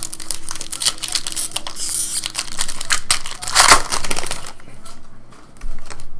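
Foil wrapper of a trading-card pack being torn open and crumpled by hand: a dense crackling crinkle, loudest a little under four seconds in.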